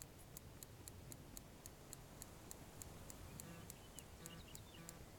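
Near silence with a faint, steady high ticking, about four to five ticks a second, and a few faint chirps about midway.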